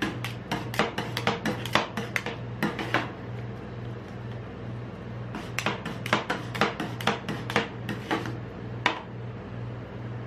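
Metal spatulas chopping and scraping ice cream mixture on a frozen steel ice-cream-roll plate: quick runs of sharp metal clacks, one burst in the first three seconds and another from about five and a half to nine seconds, over a low steady hum.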